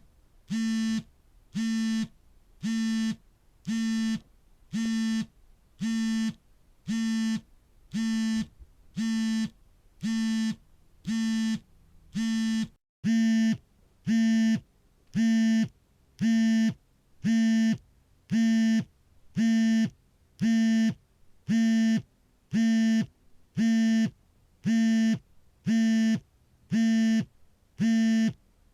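Smartphone vibrating for an incoming call: a buzzing pulse about half a second long, repeating about once a second, with a steady hum-like pitch. About halfway through there is a brief break, and the buzzes come back a little louder.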